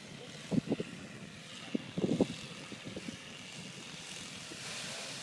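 Strong gusty wind buffeting the microphone in irregular low thumps, with a rush of wind that grows louder about four and a half seconds in.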